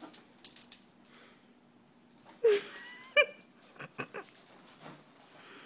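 Small dog playing with a balloon: two short yips about two and a half and three seconds in, with a few sharp taps and rustles of the balloon scattered around them.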